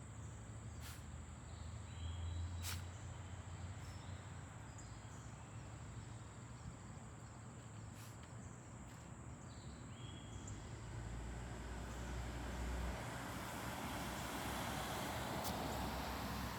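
Outdoor ambience: a steady, high-pitched insect drone over a low background rumble, with a few faint clicks. The background noise grows louder about two-thirds of the way through.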